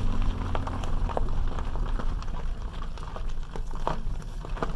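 Vehicle creeping over a rough gravel road: a low engine and tyre rumble with scattered clicks and knocks from gravel under the tyres and the vehicle jolting.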